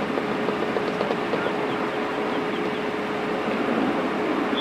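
Steady outdoor street background noise with a constant hum, like a running vehicle engine, and a few faint ticks.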